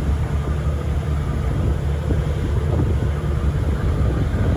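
Tour boat under way on open sea: a steady low rumble from the engine and hull, mixed with wind buffeting the microphone and water rushing in the wake.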